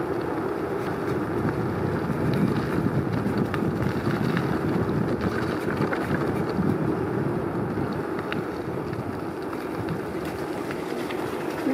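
Steady rush of wind on the microphone of a moving bicycle rider's camera, mixed with the rumble of tyres rolling over a leaf-strewn gravel path and light scattered crackles.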